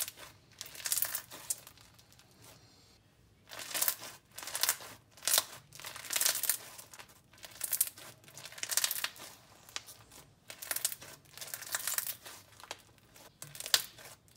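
Slime being squeezed and pressed by hand, crackling and popping in short irregular bursts, about one or two a second with brief pauses.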